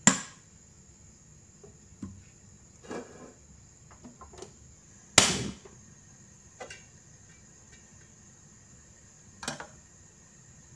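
Scattered sharp knocks and clicks from an aluminium wok and spatula being handled on a gas stove: one at the start, the loudest about five seconds in with a brief trailing rush, and a few lighter taps between.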